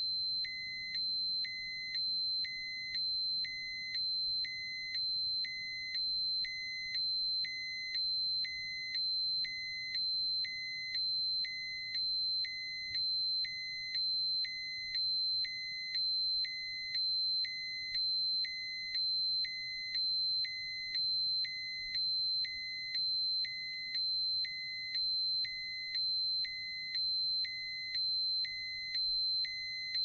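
X-ray dosimeter alarm going off: a continuous high-pitched electronic tone with a lower beep pulsing on top about once a second. It is the warning a dosimeter gives when a set radiation dose or dose-rate limit is exceeded.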